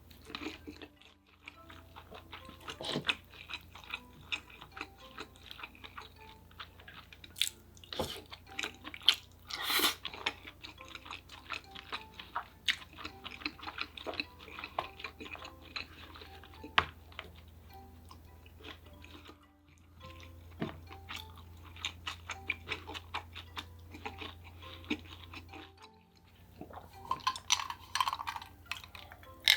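Close-miked eating sounds: chewing and biting food, with many sharp clicks and crackles, over a steady low background hum.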